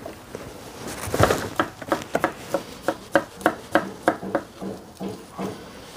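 A quick, even run of light kitchen taps, about four a second, starting about a second in and stopping shortly before the end.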